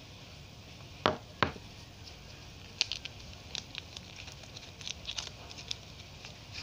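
Two sharp knocks about a second in, then a run of short, crisp crinkles as a bar soap's plastic wrapper is handled.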